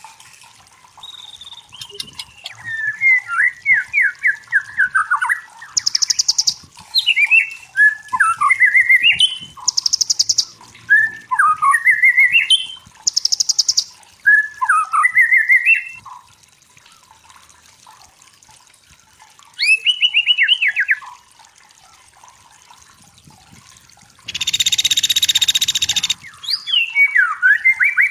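White-rumped shama singing: a run of varied whistled phrases with rising and falling glides and rapid trills, broken by short harsh buzzy notes and one longer harsh burst near the end, with a couple of quieter pauses between phrases.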